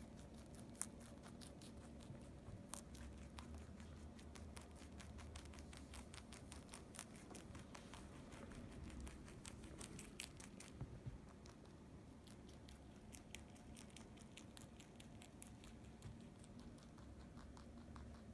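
Lop-eared rabbit chewing lettuce and a twig: faint, rapid crunching clicks, thinning out after about ten seconds.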